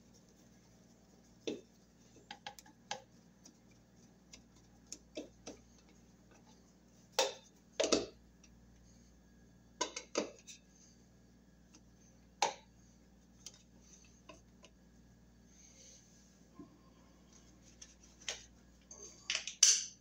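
Screwdriver turning the mounting screws of a new toggle light switch into its wall box: scattered small metallic clicks and knocks, with a louder clatter twice, about seven seconds in and near the end.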